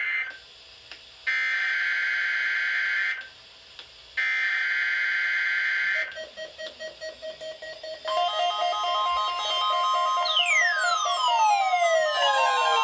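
EAS digital header data tones: three screechy two-second bursts of rapid two-tone warbling, each about a second apart. From about eight seconds a steady beep-like tone sounds under music with long falling swoops.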